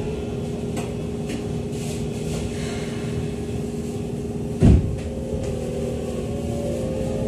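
Inside a Keikyu 600 series electric train car, the onboard electrical equipment gives a steady hum. A single loud thump comes about two-thirds of the way in. Then a faint whine from the traction motors starts and slowly rises in pitch as the train begins to pull away.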